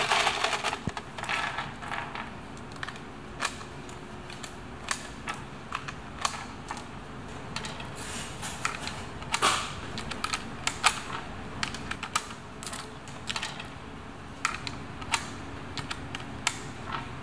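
Irregular sharp metallic clicks and clinks, several a second and uneven in loudness, over a steady low workshop hum.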